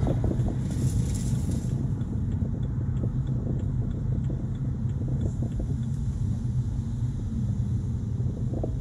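Low, steady engine and road rumble heard from inside a car cabin while driving slowly, with a short hiss about a second in.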